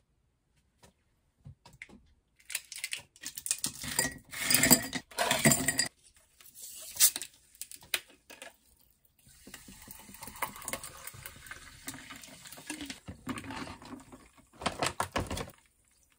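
Ice cubes clattering into a glass. Then sparkling water is poured over the ice with a steady fizzing hiss for several seconds, and the ice clinks again near the end.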